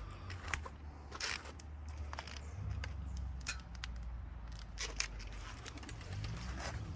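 Footsteps on a tarmac driveway with scattered clicks and rustles, over a steady low rumble.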